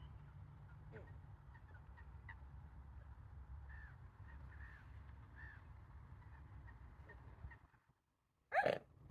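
Outdoor lakeside ambience: a low steady wind rumble with faint, scattered small-bird chirps, which cuts out suddenly near the end. Then one short, loud, honk-like call.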